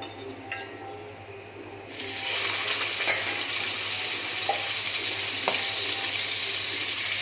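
Masala-coated chicken pieces frying in hot oil in a pan: a loud, steady sizzle starts suddenly about two seconds in, after a quieter start with a few faint clicks.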